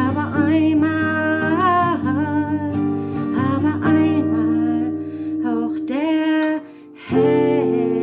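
A woman singing long, held notes with vibrato, accompanied by her own guitar, with a brief break about seven seconds in.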